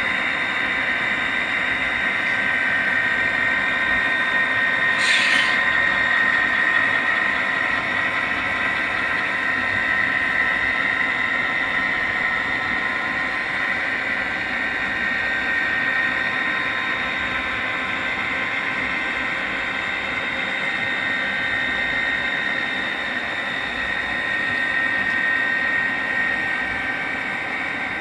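Model train running on the layout track: a steady whine from the locomotive's electric motor and the rolling of the cars' wheels on the rails, with a brief hiss about five seconds in.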